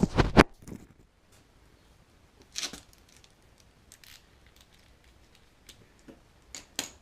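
Hand tools being handled during cleaning: a few loud knocks in the first half second, a short scraping or rubbing burst about two and a half seconds in, then scattered small clicks and clinks.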